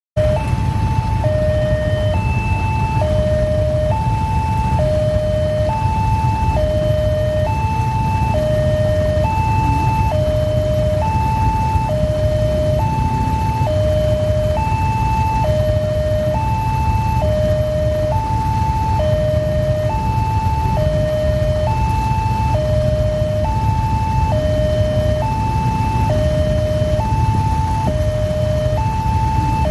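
Railway level-crossing warning alarm sounding a steady two-tone high-low signal, switching pitch about once a second, the warning that a train is approaching. Underneath it is a low rumble of idling engines from the waiting motorcycles and truck.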